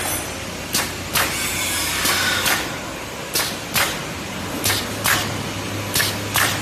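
Bag-making machine for flower-packaging film running: a steady hum with sharp clacks, mostly in pairs, about once every second and a half as the pneumatic sealing and cutting heads cycle.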